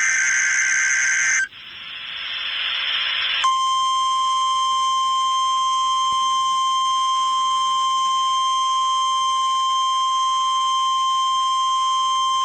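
NOAA Weather Radio Emergency Alert System signal for a tornado watch: the last of the SAME header's data bursts, then about two seconds of radio hiss. From about three and a half seconds in comes the steady 1050 Hz warning alarm tone, one unchanging pitch lasting about nine seconds.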